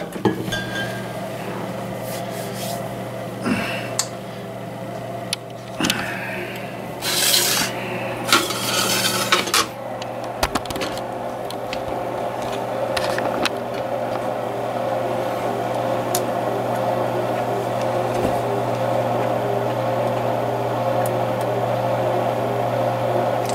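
Presto Pizzazz rotating pizza oven running, its motor turning the tray with a steady low hum and a higher steady whine above it. A few seconds of rubbing and scraping handling noise come near the middle.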